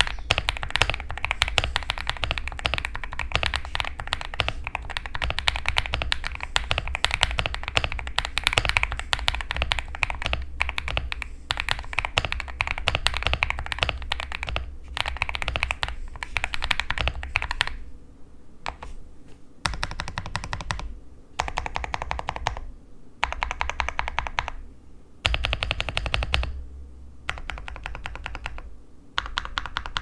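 Fast typing on an ESC66 mechanical keyboard with lubed Dreamland linear switches and GMK-clone keycaps, modded with Poron PCB foam, polyfill, tape and PE foam. A steady stream of keystrokes for the first two-thirds, then short bursts of typing with brief pauses between them.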